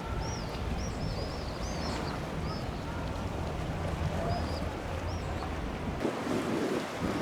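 Small birds chirping repeatedly in short high calls over a steady low engine hum; the hum drops away about six seconds in.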